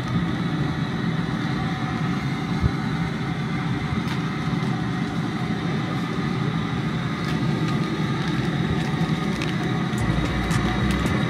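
Propane-fired LOCO 90-quart seafood boiler running with a steady, even rushing noise, its burner going under a pot at a hard rolling boil. A few light clicks near the end.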